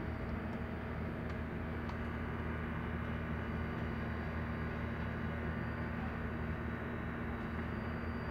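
A steady low machine hum with a hiss, even throughout.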